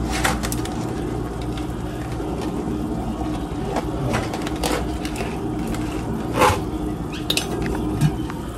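A cardboard carton and box being handled in the hands, giving a few short sharp crinkles and taps, the loudest just past the middle, over a steady low hum.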